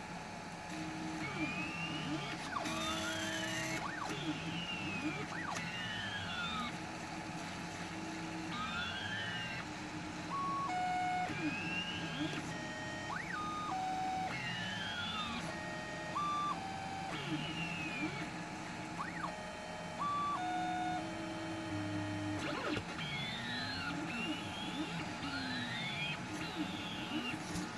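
3D printer stepper motors singing calliope-like tones: the extruder motor sounds held notes that jump from pitch to pitch while the axis motors add rising and falling whines. The cause is the Duet 0.8.5 controller treating the slicer's extruder positions as relative moves, so the extruder is driven at wrong, jumping speeds.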